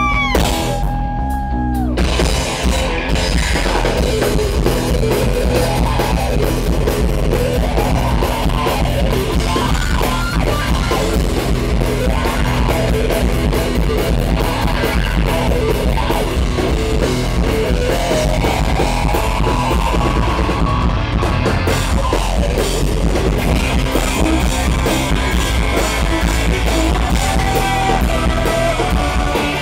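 Live hard rock band playing loud through a hall PA: pounding drum kit, distorted electric guitars and bass. A held note breaks off about two seconds in and the full band crashes in.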